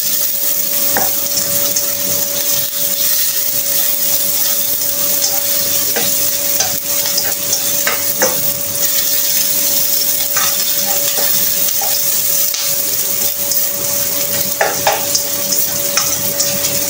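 Food sizzling in a hot wok while a spatula stirs it, with short clicks and scrapes of the spatula against the pan every few seconds. A steady hum runs underneath.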